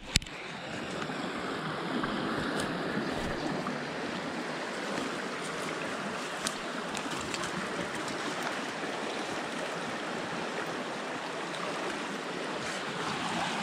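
Shallow stream rushing steadily over rocks. A single sharp click sounds right at the start.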